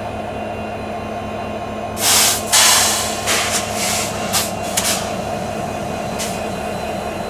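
Standing diesel-electric locomotives idling with a steady low drone. A cluster of short, loud hisses comes about two to five seconds in, and one more near the end.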